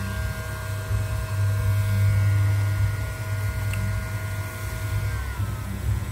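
LK 8032 hot air gun's fan running with a steady whine over a loud low hum; about five seconds in the whine glides down in pitch as the fan slows to a lower speed.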